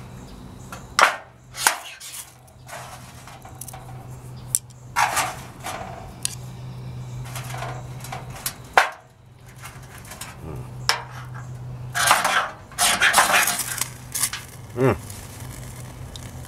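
A knife spine is scraped down a ferrocerium rod (fire steel) planted in fatwood shavings on a metal tray, with sharp metallic clicks and taps. There are two longer scrapes, about five seconds in and about twelve seconds in; these are the strikes that throw sparks and light the shavings.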